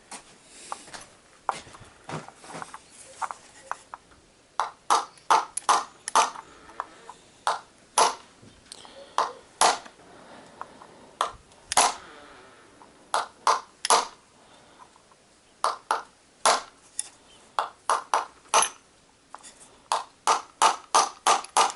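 Small hammer tapping a metal drift to knock apart a GAZelle heater fan motor held in the hand. The taps are sharp and ringing, some single and some in quick runs of three to five.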